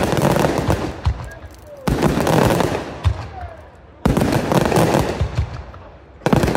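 Daylight aerial firework shells bursting three times about two seconds apart. Each burst opens with a sharp bang followed by a dense rapid crackling of the stars that fades away.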